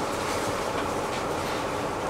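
Steady running noise of a city bus heard from inside the passenger cabin: an even rumble of engine and road with a few faint rattles.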